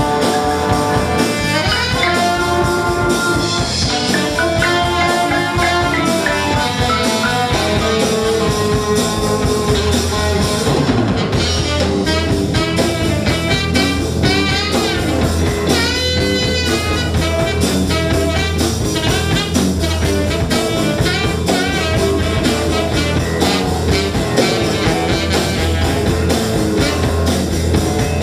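Live band playing an instrumental blues-rock number: electric guitar and saxophone over keyboard, electric bass and drum kit, with a steady beat.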